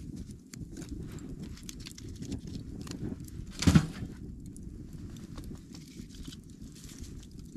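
Wood fire crackling inside a small metal stove, scattered small pops over a steady low rumble. A single louder knock about three and a half seconds in.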